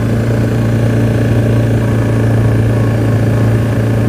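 Quad bike engine running at a steady, even speed while driving along.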